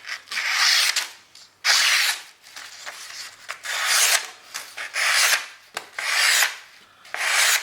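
Sharp knife blade slicing and shaving through a sheet of paper in about six separate rasping strokes, each under a second long.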